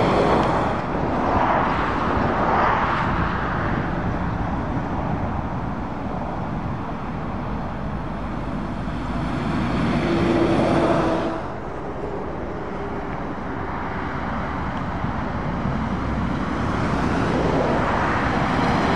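Motorway traffic: articulated lorries and cars passing at speed, the tyre and engine noise swelling as each lorry goes by. About eleven seconds in, a passing lorry's hum cuts off sharply as it moves away.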